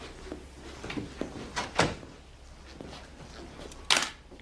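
A few short knocks and thumps, then one sharp bang near the end, the loudest sound here.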